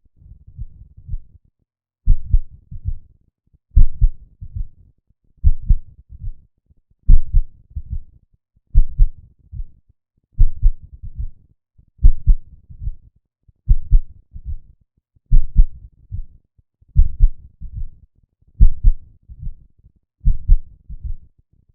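Heart sounds beating in a steady pattern of paired beats: a stronger beat, then a weaker one close behind, with the pair repeating about every second and three-quarters. This grouping is the rhythm of bigeminy, an extra beat following each normal beat, here provoked by the catheter in the heart.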